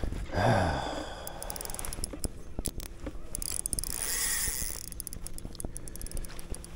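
Spinning reel clicking and ratcheting in fast runs while a big bass on the line is fought.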